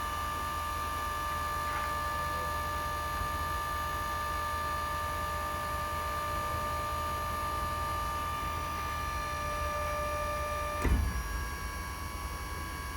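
Electric-over-hydraulic crane's pump motor running with a steady whine over a low rumble. About eleven seconds in there is a clunk, and the whine changes to a slightly lower, thinner tone as the crane function stops.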